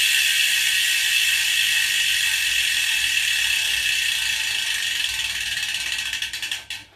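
Freehub of a ceramic-bearing Powerway rear hub ratcheting as a carbon bicycle wheel spins: a fast, even, high-pitched buzz of pawl clicks that slowly fades and slows into separate clicks, stopping near the end.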